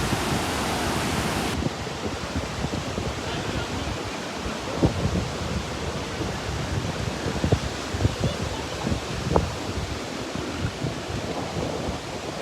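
Steady rushing of water outdoors, with wind buffeting the microphone and scattered small irregular knocks.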